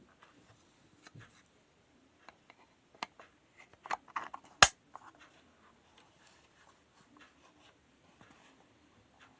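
Scattered small plastic clicks and taps of a DYMO label maker being handled, with a cluster of louder clicks about four seconds in and one sharp, loud click just after.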